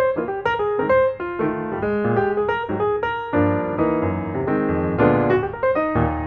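Background piano music: a flowing run of single notes and chords, changing several times a second.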